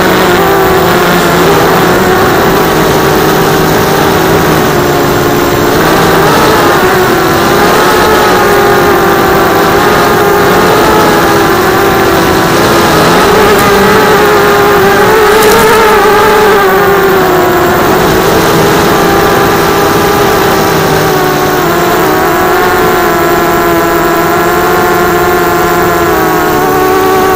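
FPV racing quadcopter's four brushless motors (RCTimer 2206, 2300 kV) and propellers whining, heard from the onboard camera, the pitch wavering up and down with throttle changes.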